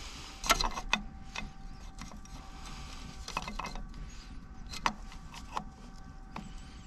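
Small metal parts of an engine governor clicking and clinking as they are worked back into place by hand: a handful of scattered sharp clicks, the loudest about half a second in.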